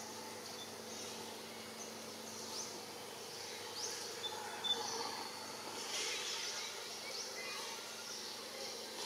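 Steady high drone of forest insects, with a few short high chirps over it.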